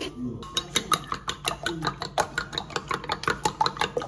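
A metal utensil beating quickly against a ceramic bowl as something is whisked in it, about seven clicks a second, starting about half a second in.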